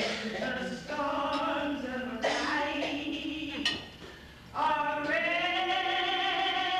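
A woman singing solo in short phrases, then holding one long note from about two-thirds of the way in.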